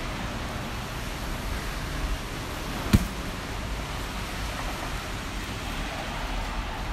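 Steady hiss of a rainy city street with traffic, with one sharp knock about three seconds in.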